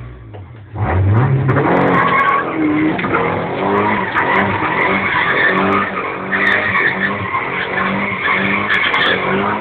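Toyota Sprinter Trueno doing donuts, heard from inside the cabin: the engine revs up about a second in, and then the rear tyres squeal and skid without a break while the engine is held high, its pitch wavering.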